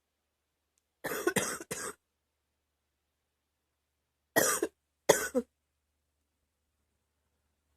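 A girl coughing: a quick run of three coughs about a second in, then two more single coughs a few seconds later.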